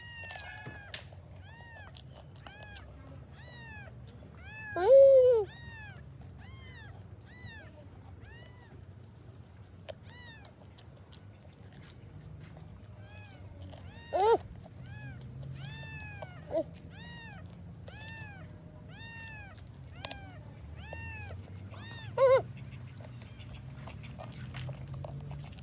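An animal calling over and over in short rise-and-fall cries, about two a second. A louder, lower cry comes about five seconds in, and a few more follow later.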